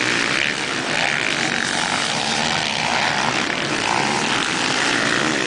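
Motocross dirt bikes' engines revving on the track, the pitch rising and falling with the throttle.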